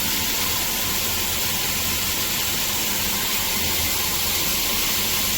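Water pouring steadily from an 8-inch rain shower head through its silicone nozzles, a constant spray hiss.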